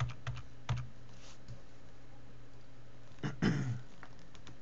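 A few sharp clicks of computer keys and a mouse near the start, over a steady low hum. A little past the middle comes a brief throat-clearing sound from the person at the computer, then a few faint clicks.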